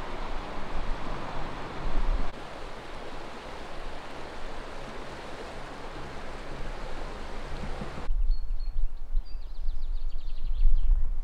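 Steady rushing of flowing river water, the Danube. About eight seconds in it cuts off abruptly, leaving low wind rumble on the microphone and birds chirping.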